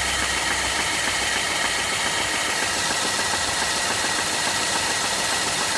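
BMW E90 318i four-cylinder petrol engine idling with a knock that the owner cannot place. A low drone under the engine noise weakens about a second and a half in.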